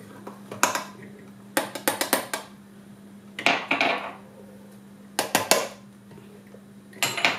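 Clinks and scrapes of a small ceramic bowl as grated lemon zest is knocked out of it into a glass mixing bowl, in several short bursts of quick taps.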